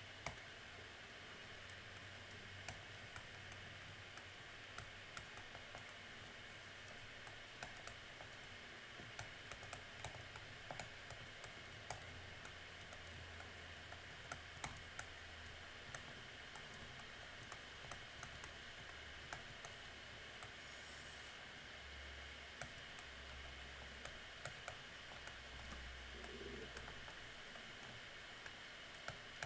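Faint, irregular clicks of keys being pressed one at a time, as numbers are keyed in to work out a result, over a low steady room hiss and hum.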